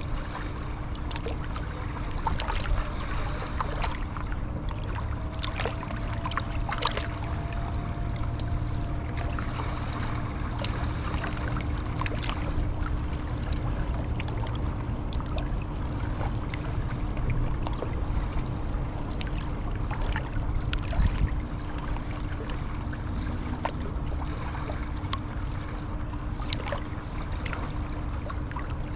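Riverside outdoor ambience: a steady low rumble with a constant faint hum. Scattered sharp clicks and ticks run over it, and a faint brief whistle-like tone sounds a few seconds in.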